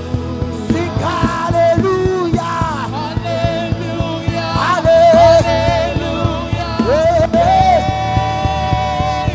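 Live worship band music: a lead singer bends and holds long notes with vibrato over sustained keyboard chords and a steady drum beat.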